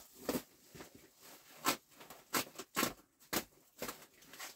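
Plastic packaging crinkling and rustling in short, irregular crackles as a new golf cart bag is unwrapped and handled.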